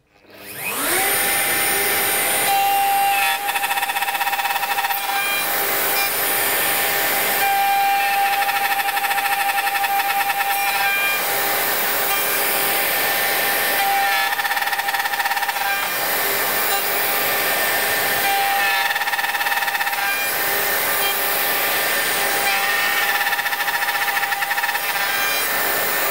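Handheld router starting up, its whine rising to speed in about a second, then running steadily as it cuts box-joint fingers into a wooden board through a jointing-jig template. The tone shifts and roughens as the cutter moves in and out of the wood from finger to finger.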